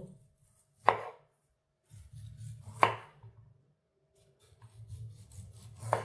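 A small Victorinox 6.7833 serrated tomato knife saws through a ripe persimmon, a soft rasping as the blade works back and forth. Sharp knocks of the blade on the bamboo cutting board come about a second in, near three seconds, and again at the end.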